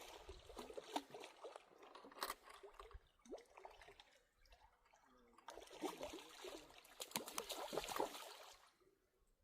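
Water splashing and trickling in two bursts, the second about halfway through, with small sharp knocks mixed in.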